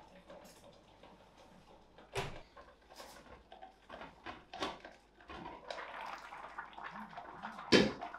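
A built-in oven's door swinging shut with a thud, followed by scattered knocks and clatters of kitchen handling. A brief patch of hiss comes before the loudest event, a sharp metal clank near the end.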